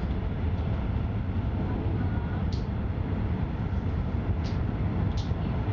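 A moving passenger train heard from inside the carriage while it crosses a steel truss bridge: a steady low rumble of wheels on rails. Three brief high hisses come about halfway through and near the end.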